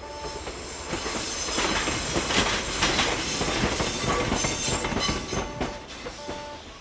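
A DD51 diesel-hydraulic locomotive and a DF200 diesel-electric locomotive running coupled past close by: engine rumble and wheels clattering over the rail joints, with some high wheel squeal, loudest in the middle. A repeating bell-like ringing tone sounds at the start and again near the end.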